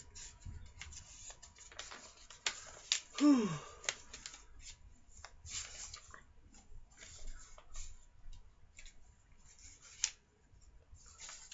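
Paper being handled: pages of a joke book rustling and being turned, heard as scattered crisp rustles and clicks. About three seconds in there is a short vocal sound that falls in pitch.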